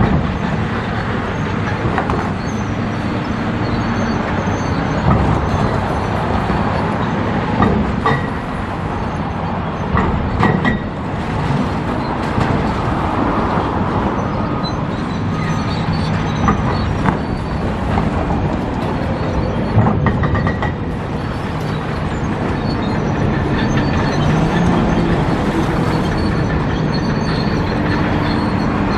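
Steady, loud vehicle noise, with scattered clanks and a few short, high squeals.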